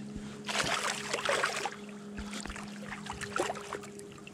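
A hooked smallmouth bass splashing at the water's surface as it is landed by hand, the splashes coming in a cluster in the first couple of seconds, then smaller splashes and drips, over a faint steady hum.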